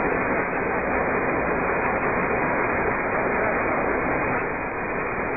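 Steady, even machinery noise from an automatic foundry mold-handling and cooling line, with a few faint clicks.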